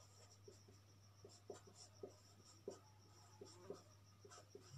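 Marker pen writing on a whiteboard: a run of short, faint strokes and taps as the letters are drawn, over a steady low hum.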